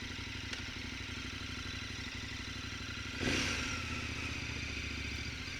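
KTM 1050 Adventure's V-twin engine idling steadily through an Akrapovic exhaust. About three seconds in, a brief louder rushing swell rises and fades away.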